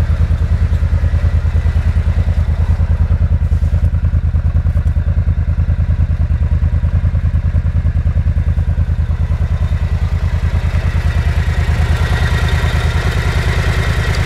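Cruiser motorcycle engine idling steadily with an even, pulsing exhaust beat, running smoothly in about 20°F cold. Its mechanical noise grows brighter near the end.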